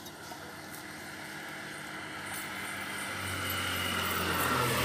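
A motor vehicle approaching, its engine growing steadily louder, with a low steady hum coming up over the last couple of seconds.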